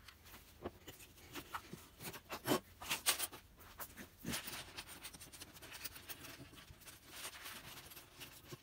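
Small wooden jigsaw puzzle pieces clicking and scraping on a wooden tabletop as hands tip and spread them out. The clatter is loudest about two to three seconds in, then settles into a steady rattle and shuffle.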